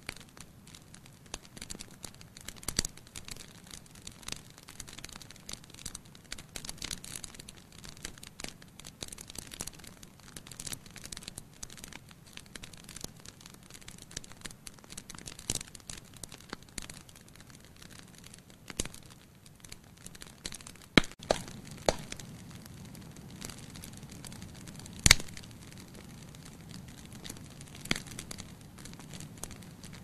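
Wood fire burning in a glass-fronted fireplace: logs crackling with many small snaps and a few louder pops in the second half, the loudest about five-sixths of the way through.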